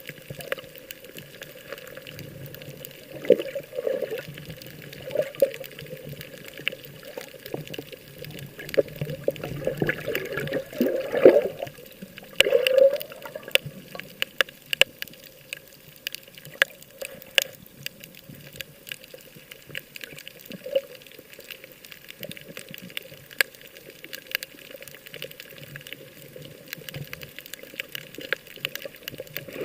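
Sea water sloshing and splashing, with many small clicks and pops and a few louder surges.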